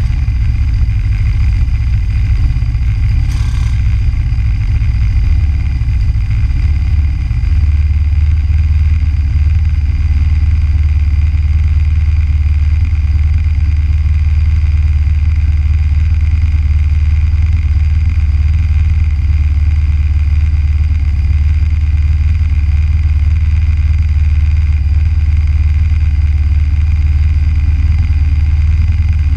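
Go-kart engine idling on the grid, uneven for the first several seconds, then settling into a steady low drone.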